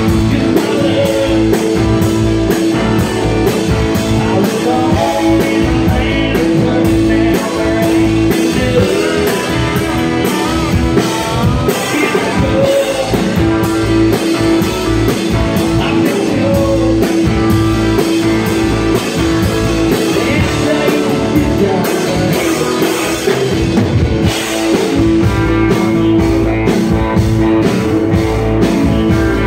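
Live country-rock band playing: a man singing lead over a strummed acoustic guitar and a drum kit.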